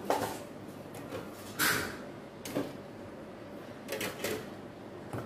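A few short knocks and rubbing noises from plastic electric-fan parts being handled and cleaned, the loudest a brief rushing scrape about a second and a half in.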